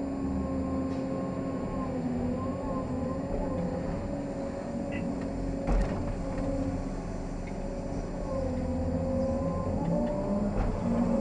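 Caterpillar 385C excavator's C18 diesel engine and hydraulic pump running under load, heard inside the cab, the pitch wavering as the machine digs, swings and dumps. A single sharp knock about six seconds in as the bucket's dirt drops into a haul truck's bed.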